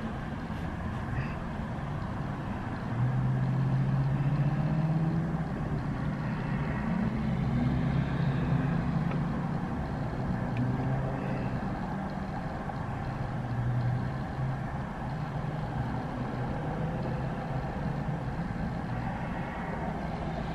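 Low, steady vehicle engine hum heard from inside a stopped car, swelling about three seconds in and drifting slightly in pitch.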